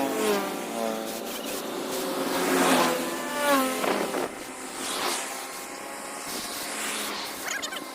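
Small electric motor whining and winding down, its pitch falling each time it is let off, several times over.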